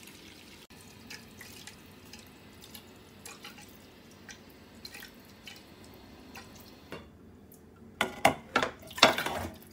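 Thin stream of water from a kitchen tap running into a frying pan in a sink, faint, with small irregular drips and splashes. About eight seconds in, a few loud clattering knocks of cookware being handled, a glass pan lid among it.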